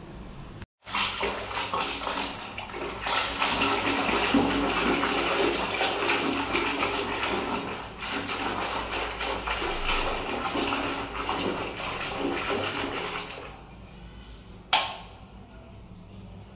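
A hand swishing and churning water in a plastic basin, whipping liquid soap into foam: continuous sloshing and splashing that dies down about three-quarters of the way through. A single sharp knock comes near the end.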